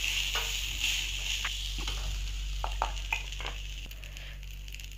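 Soaked rice frying in oil with spices in a metal pan: a soft sizzle, with scattered clicks and scrapes of the metal spatula against the pan as the rice is stirred. The sizzle thins out near the end.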